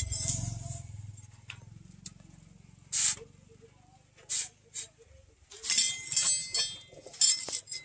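Hot steel axe head dipped in and out of a water trough to quench it: a few short, sharp hisses as it touches the water, then a longer crackling sizzle near the end.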